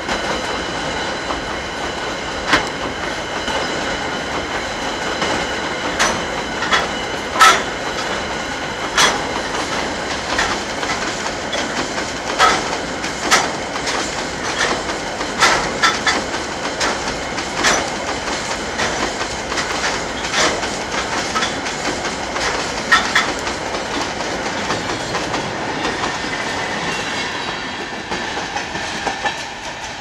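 Empty freight hopper wagons rolling past on the rails, the wheels clacking over rail joints with sharp knocks every second or so over a steady high metallic ringing. The sound drops away near the end.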